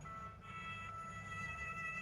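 Quiet background music: a held chord of high, steady tones.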